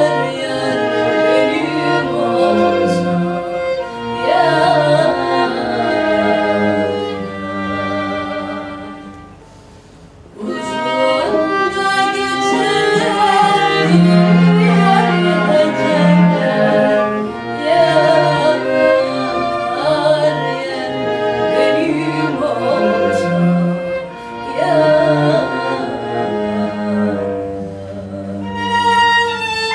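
A Turkish folk song played by a female singer with flute, violin, viola and cello, the bowed strings prominent. The music thins out and quietens about nine seconds in, then the full ensemble comes back in.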